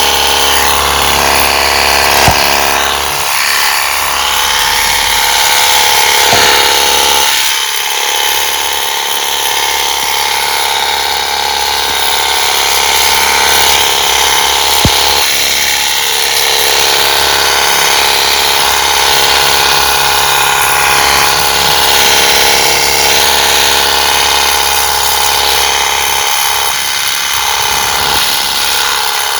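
Battery-powered portable pressure washer running steadily, its small electric pump motor driving a jet of water.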